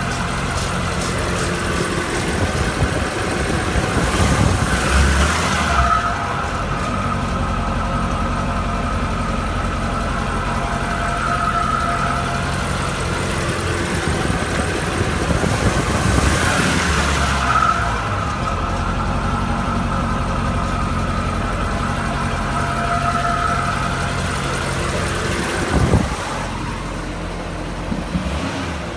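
2012 Corvette Grand Sport's 6.2-litre LS3 V8 running in gear with a rapid ticking over the engine note. The tick is the fault the owner is recording.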